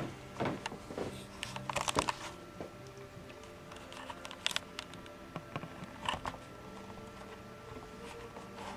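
Large-format inkjet printer running as it prints vinyl stickers: a steady machine hum with irregular clicks and clatter, the busiest stretch about two seconds in.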